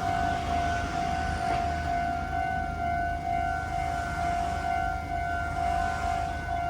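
Japanese railway level-crossing warning bell ringing, one tone struck over and over in an even rhythm, over a steady low rumble.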